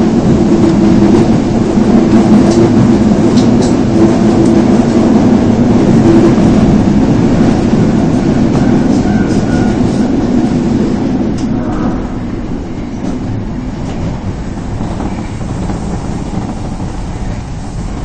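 Subway train running through a tunnel, heard from inside the car: a loud, dense rumble of wheels and running gear with a steady hum underneath, easing and getting quieter from about two-thirds of the way through.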